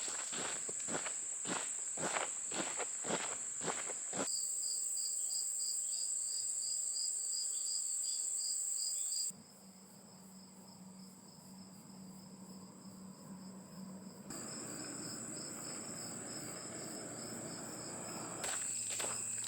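Walking footsteps at a steady pace, about two a second, under a steady high-pitched chorus of crickets and other insects. The steps stop after about four seconds and a pulsing insect trill joins the chorus. The sound then cuts abruptly to a quieter stretch with a low steady hum, then to a soft rushing noise, before footsteps start again near the end.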